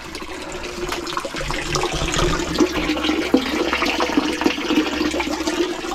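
Water running and splashing steadily, growing louder over the first two seconds.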